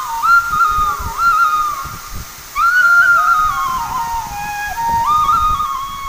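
Background music: a solo flute plays a slow, ornamented melody in phrases. The middle phrase falls in pitch.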